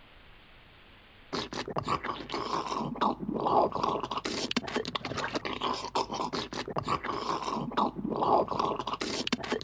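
Chewing and crunching sound effect for a character eating, starting about a second in: crackly, scraping chews that swell and fade every second or so.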